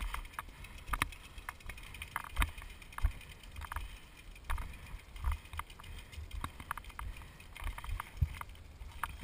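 Mountain bike rolling down a rocky dirt trail: scattered knocks and clicks from the bike rattling over stones, over a low rumble.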